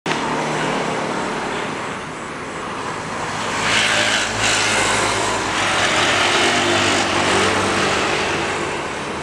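Airliner jet engines running at low power on the ground, a steady rushing hiss that swells louder through the middle and eases near the end.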